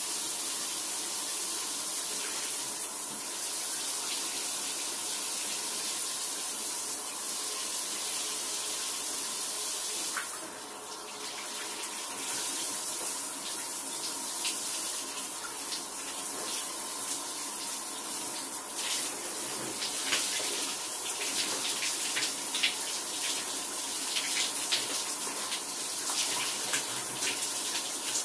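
Shower spray running steadily, with a brief dip about a third of the way in, then irregular splashes and spatters of water for the rest.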